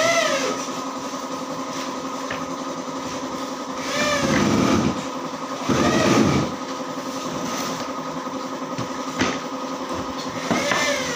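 Table saw motor running with a steady hum, ripping wood strips. Its pitch dips and recovers each time a board is fed through, with the loudest cutting passes about four and six seconds in.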